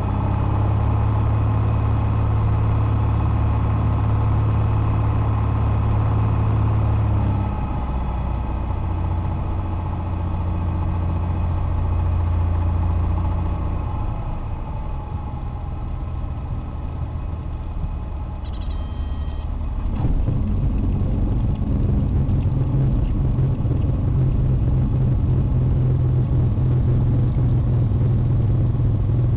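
Piper PA-28 Dakota's six-cylinder Lycoming piston engine and propeller running at low power, heard inside the cockpit as the plane rolls along the runway after landing. The engine note steps down about 7 seconds in and again around 14 seconds, then rises and gets louder about 20 seconds in.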